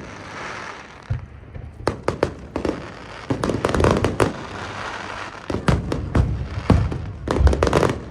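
Aerial fireworks display: volleys of shell bursts, several sharp bangs in quick succession at a time, with crackling between them; the heaviest bangs come near the end.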